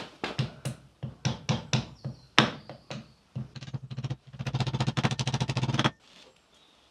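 Hammer blows driving a part into a Land Rover rear axle hub: a string of separate sharp metal knocks, then a quick even run of light taps for nearly two seconds that stops suddenly.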